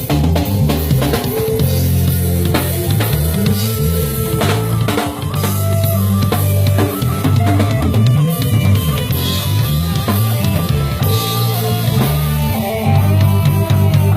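A live band playing during a sound check: a drum kit with a loud, moving bass line and guitar over it.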